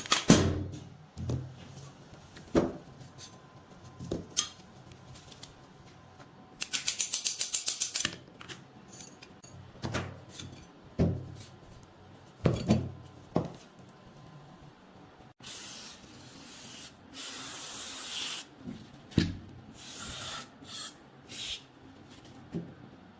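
Rusted MP5 metal parts being handled and knocked on a work surface, with scattered knocks and clicks. A quick run of about ten even clicks comes about seven seconds in, and a hissing spray lasting about three seconds comes in the second half.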